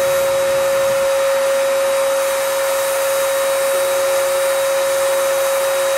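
Electric paint sprayer running steadily as a spray gun applies polyurethane finish: a constant rush of air under one steady whine.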